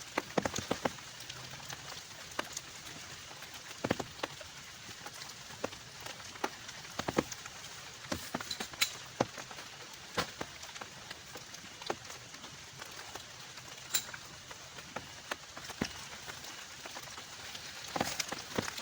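Steady rain with irregular sharp taps of drops striking a surface.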